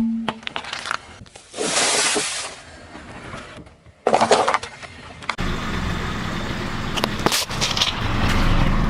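A car's tyre rolling over and crushing objects, heard in several short cuts: crunching and cracking bursts, then the rumble of the tyre rolling with a few sharp cracks about seven seconds in.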